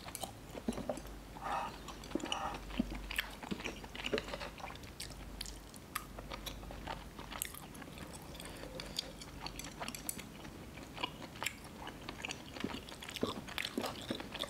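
A person chewing a mouthful of spicy Korean noodles and chewy tteokbokki rice cakes, with many small, sharp wet mouth clicks.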